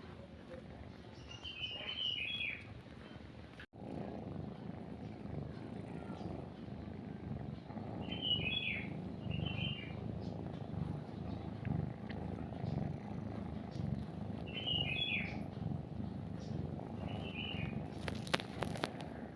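A kitten purring steadily while nursing, a sign that it is content, with short bird chirps coming in every few seconds. The sound drops out briefly about four seconds in, and the purring is louder from then on; a short run of clicks comes near the end.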